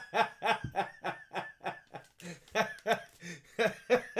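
A man laughing hard in a long, even run of short ha-ha pulses, about four a second.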